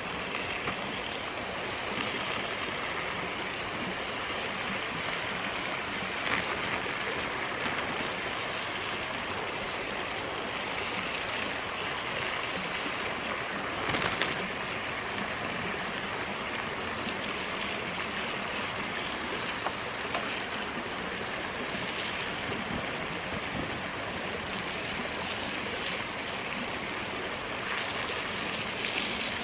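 Bacon strips sizzling in a frying pan on a small wood-burning camp stove, over the steady rush of a flowing creek. A few brief knocks sound through it, the loudest about 14 seconds in.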